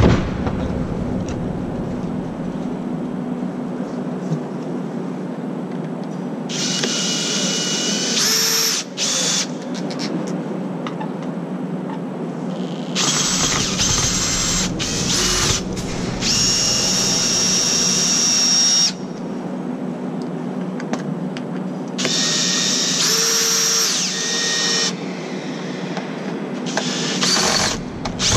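Electric drill-driver driving screws into wooden formwork boards. It runs in four bursts of a few seconds each, a high whine whose pitch glides up and down as the trigger is squeezed and released.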